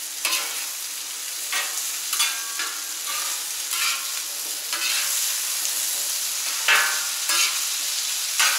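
Diced russet potatoes sizzling in oil on a hot flat-top griddle, with repeated short scrapes of a metal spatula as they are pushed and gathered into a pile.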